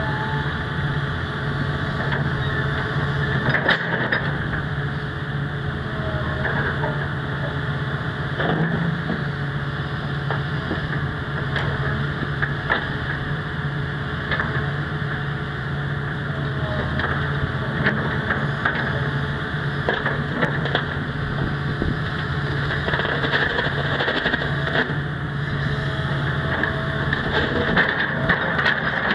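Hitachi ZX350LC-3 excavator's diesel engine running steadily as the hydraulic boom and bucket are moved and set down on the gravel, with a few short knocks from the bucket and linkage.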